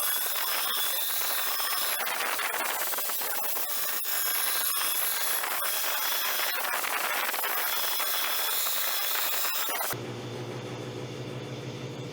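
Power grinder working steel, a dense grinding hiss with a high whine whose pitch wavers as the work is pressed and eased. About ten seconds in, the grinding cuts off abruptly and a steady low motor hum remains.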